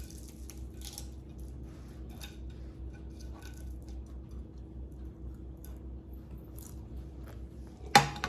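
A steady low hum in a quiet room, with faint scattered rustles and ticks, then one sharp knock near the end, the loudest sound.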